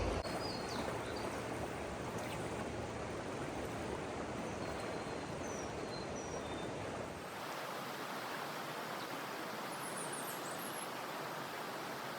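Steady rushing of river water running over a shoal, with a few faint bird chirps.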